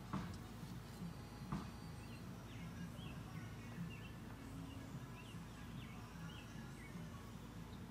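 Honey bees buzzing around an open hive, with two sharp knocks of a metal hive tool on the wooden box in the first second and a half. A small bird chirps repeatedly in the background.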